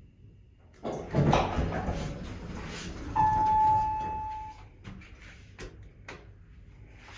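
Elevator doors sliding with a rattle, then a single electronic elevator chime tone about three seconds in, held for over a second, and a few clicks afterwards.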